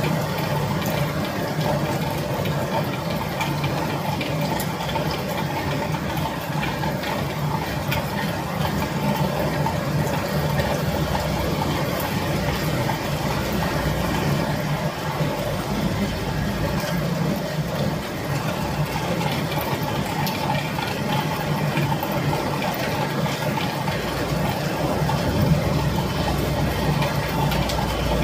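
Steady rain with a constant low rumble underneath.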